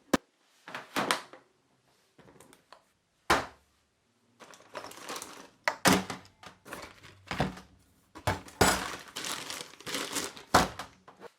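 Handling of model-rocket parts and their packaging: a series of sharp clicks and knocks of hard plastic, with rustling and crinkling in between.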